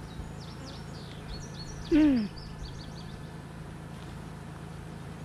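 Small birds chirping over a steady low hum, with one loud, short falling tone about two seconds in.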